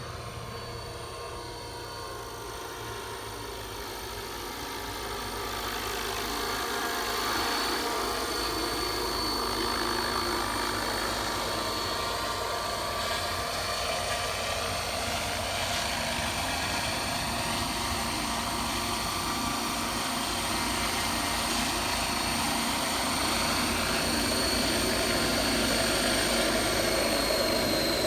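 600-size RC model helicopter running, a steady high whine over rotor noise. It gets louder about five seconds in, and the whine dips slightly in pitch near the end.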